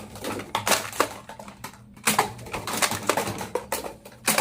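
Plastic toy gun clicking and clacking as it is worked: an uneven run of sharp clicks, a few per second.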